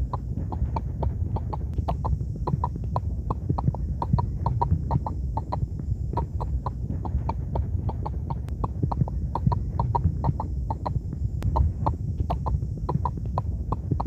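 Mink frog calling: a rapid, slightly irregular series of hollow knocks, about three to four a second, over a low background rumble and a faint steady high hiss.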